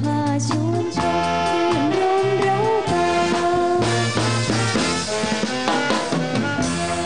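Big band playing a popular song, led by a saxophone section over a drum kit. A gliding melody line in the first three seconds gives way to fuller held horn chords.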